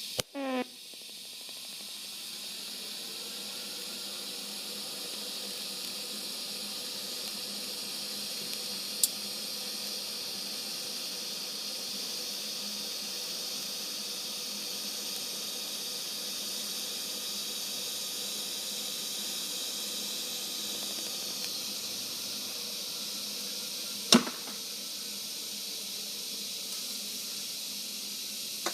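TIG welding arc running with a steady hiss and a faint high whine. It strikes just after the start; the whine slides down and stops about three-quarters of the way through, followed shortly by a sharp click.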